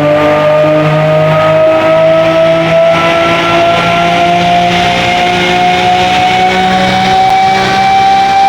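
Lamborghini Murciélago's V12 engine running loud under steady acceleration, its pitch climbing slowly.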